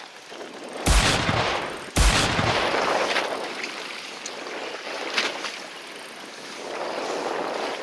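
Two heavy slaps of waves against a boat's hull, about a second in and again a second later, each followed by a splashing wash, over steady sea and wind noise.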